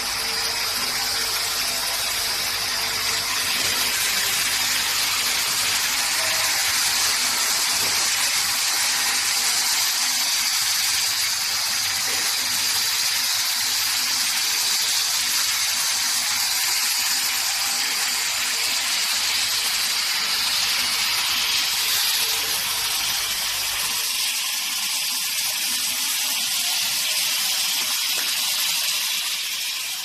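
Machinery on a bottling line running steadily: a loud, even hiss over a low hum from the conveyor and the round-bottle labelling machine. The low hum drops away about four-fifths of the way through, while the hiss carries on.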